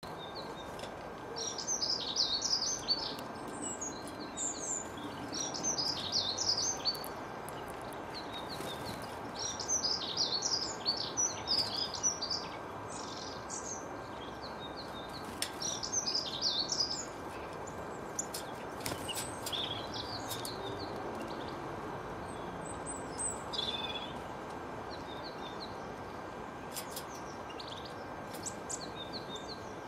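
Small songbirds singing in repeated bursts of quick, high twittering phrases, thicker in the first half and sparser later, over a steady low background hum.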